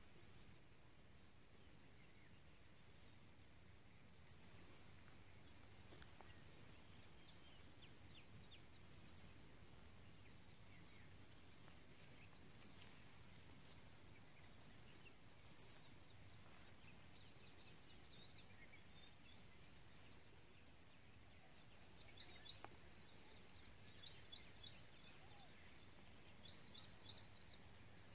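Small birds calling: short, high bursts of three or four quick notes every few seconds, then busier clusters of calls in the last several seconds, over a faint background hiss.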